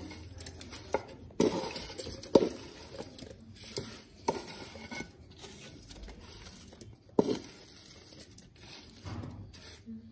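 Cooked green chillies being scraped with a spoon out of a metal pan into a plastic blender jar: scattered sharp knocks of spoon and pan rim against the jar, with soft scraping and the wet slide of the chillies between them.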